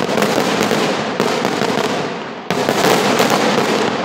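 Aerial fireworks bursting overhead in a dense, rapid barrage of bangs and crackles, with a sudden louder surge about two and a half seconds in.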